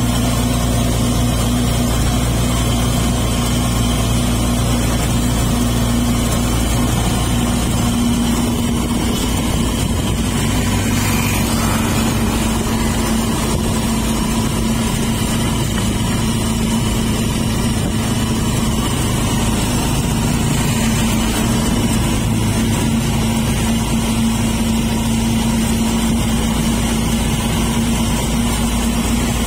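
A tricycle's motorcycle engine running steadily while the rider travels in the sidecar, with road and wind noise under a constant engine hum.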